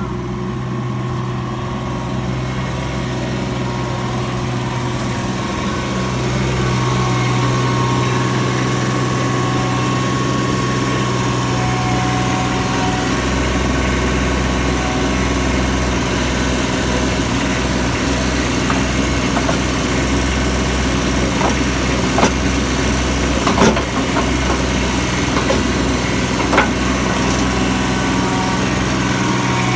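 Ditch Witch stand-on mini skid steer's engine running steadily, getting louder about six seconds in. A few sharp knocks sound near the end.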